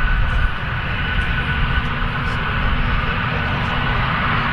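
Antonov An-124 Ruslan's four turbofan engines running on the runway: a steady rushing jet noise with a steady high whine over it.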